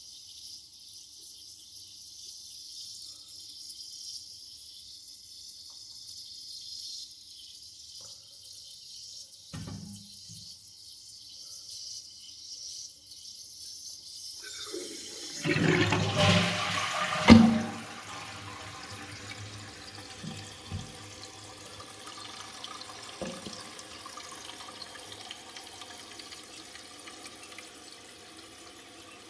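Toilet hissing steadily, a thin high hiss. About halfway through a louder rush of water starts, with a sharp clack, and the water keeps running after it.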